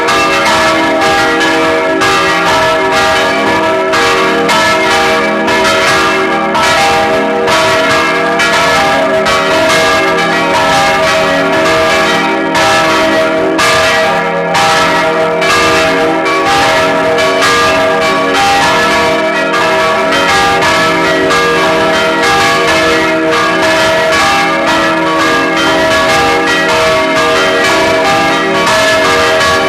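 Full peal of four church bells ringing together: three large baroque bells cast by Anselm Speck of Heidelberg in 1788 and a small one from 1988. Their strokes overlap in a dense, unbroken stream over a sustained ringing hum.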